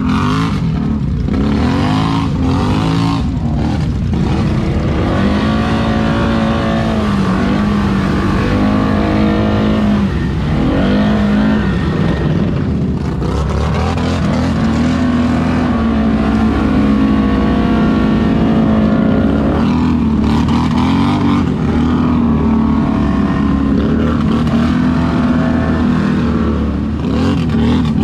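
ATV engine running hard, its pitch rising and falling with the throttle and holding steady for several seconds at a time between drops.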